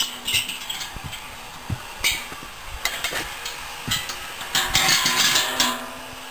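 A metal well chain rattling and clinking as it is handled, in several short bursts with a longer stretch of rattling near the end.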